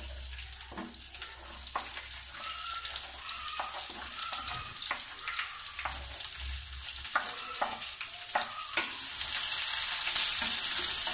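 Chopped onions sizzling in hot mustard oil in a wok, with repeated scrapes and taps of a wooden spatula on the chopping board and pan rim. The sizzle grows louder about nine seconds in as the onions are stirred in the oil.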